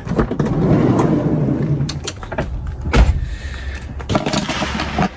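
Rustling handling noise with several sharp clicks and knocks, the loudest a heavy thump about three seconds in.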